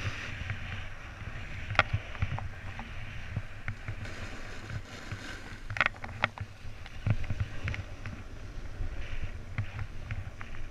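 Snowboard sliding and carving over packed snow, its edges scraping with a steady hiss. Wind buffets the camera microphone as a low rumble. A few sharp clicks and knocks come from bumps, about two seconds in and again around six and seven seconds.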